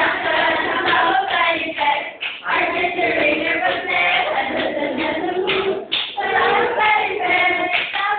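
A group of nursing students singing a song together, their many voices carrying one melody, with short breaks between phrases.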